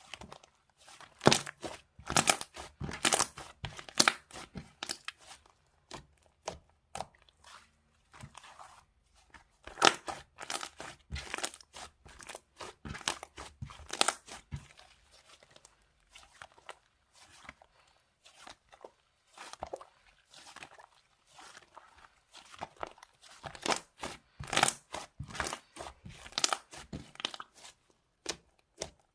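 Irregular, close-up crinkling, crunching and tearing sounds come in clusters of short crackles with brief pauses between them.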